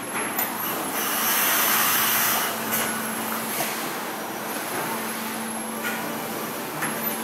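Factory-floor machinery noise: a steady hum under a constant din, with a loud hiss about a second in that lasts around a second and a half, and a few short knocks.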